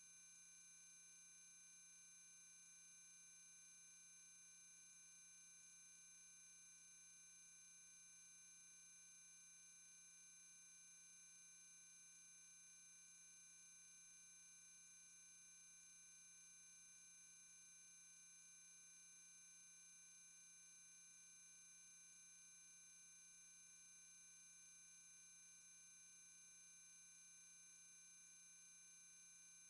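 Near silence with only a faint, steady electronic whine of several fixed tones that never change.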